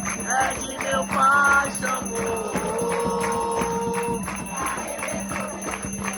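Devotional chant to Xangô sung to a steady percussion beat, with a bell-like jingle in the accompaniment. The voices bend through a phrase early on, then hold one long note from about two to four seconds in.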